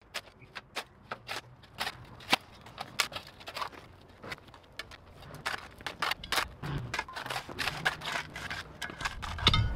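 Concrete mix being packed around a fresh gate post: irregular gritty scrapes and sharp clicks, getting busier partway through, with heavier thuds starting near the end.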